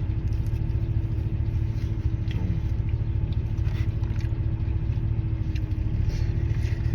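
Car engine idling: a steady low rumble with a constant hum, with faint chewing sounds over it.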